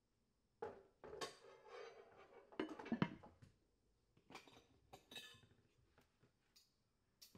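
Quiet clatter of dishes and cutlery being handled on a kitchen counter: a plate set down and utensils knocking and scraping. The knocks are loudest about three seconds in, with a few lighter clinks after.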